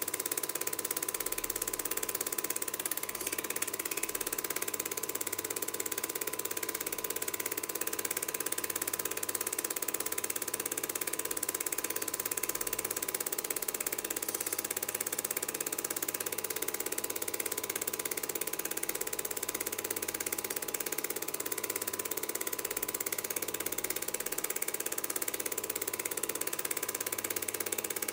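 Film projector running, a steady fast mechanical clatter with hiss and a constant whine.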